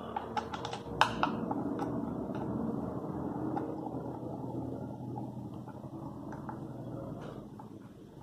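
Hard plastic parts of an outboard tiller throttle grip clicking and tapping as they are handled, with a sharp click about a second in. Then a steady low rustling of handling that slowly fades.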